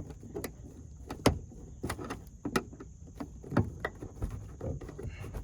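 Plastic interior trim clips and covers being worked loose by hand: a string of irregular sharp clicks and knocks.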